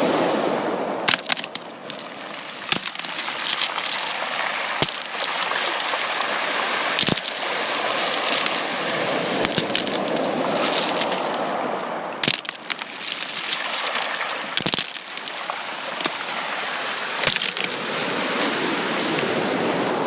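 Sea waves washing onto a beach, the surf swelling and easing about every nine seconds, with frequent sharp clicks and crackles over it.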